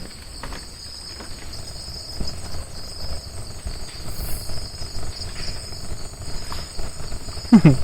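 Steady high-pitched chorus of night insects such as crickets, trilling without a break, over a faint low rumble. A brief voice comes in just before the end.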